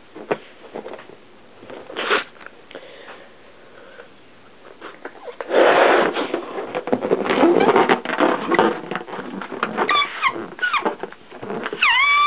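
Arctic fox moving about in its wire cage: a few light clicks, then several seconds of loud scraping and rustling around the middle. Near the end the fox gives a few short high-pitched calls, and the last call is held longer.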